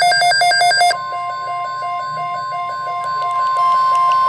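NOAA Weather Radio alert: electronic alarm beeping, fast at first. About a second in, the steady 1050 Hz warning tone starts and keeps sounding while slower beeps of about three a second continue under it. The tones signal that a watch or warning message follows.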